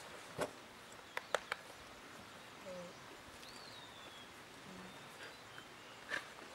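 A rider dropping off a saddled horse onto the ground with a thud, followed by a quick run of sharp clicks and another knock near the end. A short bird chirp comes about halfway through.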